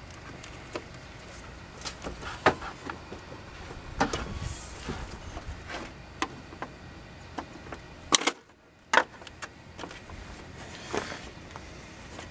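Plastic clicks, knocks and scrapes as a 2004 Mazda 6 headlight assembly is wiggled and pulled free of its mounts, with a few sharper knocks scattered through.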